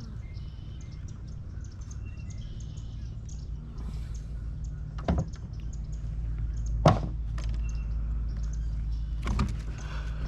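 Low, steady hum of a bass boat's electric trolling motor pushing through shallow water, broken by three sharp knocks about five, seven and nine seconds in.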